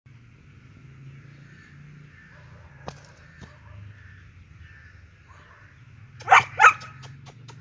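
Two short, loud animal calls in quick succession about six seconds in, over a faint steady background din.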